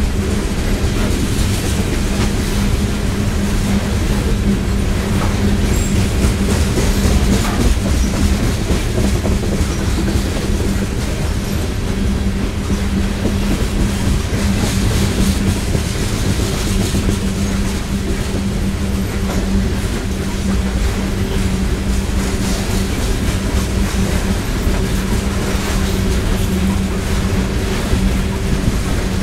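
Coal train's open-top hopper cars rolling past at speed: a steady rumble of steel wheels on rail, clattering over the rail joints, with a steady low hum.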